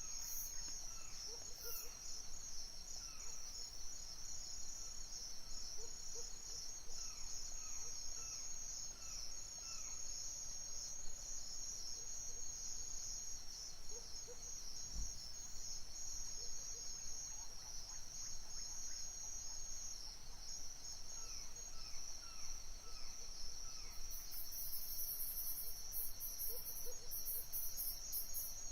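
Crickets chirping at night in a steady, high, pulsing chorus. Faint short falling chirps come and go behind it. Near the end, a still higher hiss starts coming in short bursts.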